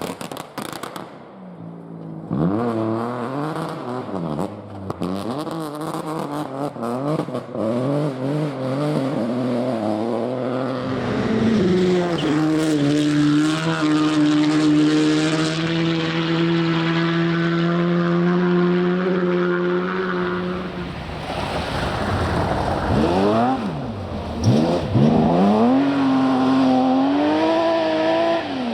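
Rally car engine working hard: revs rising and falling through gear changes, then held at a steady high pitch for several seconds flat out, then dropping and climbing again through downshifts and acceleration. A run of sharp cracks comes in the first couple of seconds.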